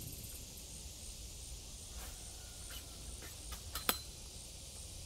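Insects droning steadily at a high pitch with a faint regular pulse, over a low wind rumble. A few sharp clicks come in the second half, the loudest about four seconds in.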